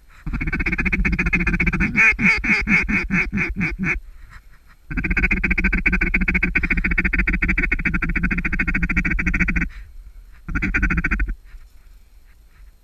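Duck call blown by a hunter, making raspy quacking blasts. A long buzzing note breaks into rapid pulses about two seconds in, then comes a second long, steady note and a short blast near the end.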